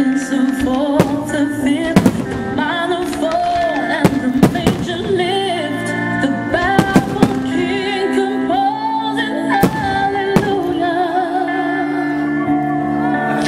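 Fireworks going off, with sharp bangs from bursting shells at irregular intervals, over loud music with a wavering sung melody.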